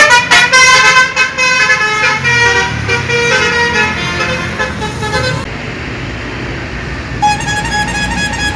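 Bus telolet horn: a loud multi-tone horn playing a quick stepped melody. About five seconds in it cuts off into a hiss, and a single long horn tone starts near the end.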